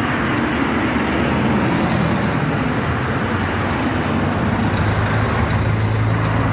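Street traffic: a car drives past close by, engine and tyres on the road, over steady traffic noise. A low engine hum grows stronger over the last couple of seconds.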